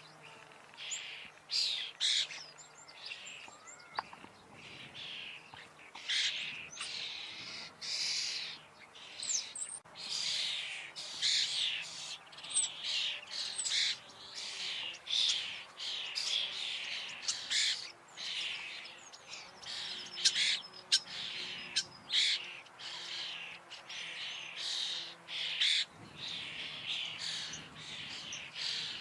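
Common starling vocalising: a dense, continuous run of short harsh chattering calls mixed with thin whistles, one after another.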